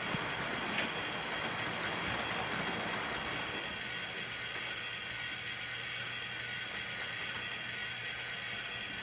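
Electric model trains running on the layout track: a steady whirring, rattling run noise with a constant electrical hum and a few light clicks, easing off slightly a few seconds in.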